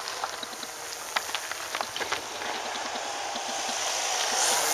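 Radio-controlled model airplane's motor and propeller flying past, growing louder to a peak near the end as it comes close, over a steady hiss with scattered sharp clicks.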